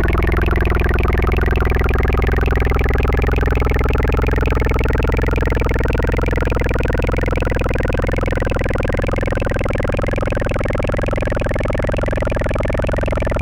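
Dense, steady electronic drone of many layered tones that glide slowly upward together, with a fast shimmer in its upper part.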